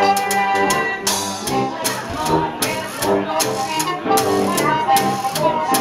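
A small live band playing: a tuba bass line and a trumpet over a washboard with a mounted cymbal keeping a quick, steady beat.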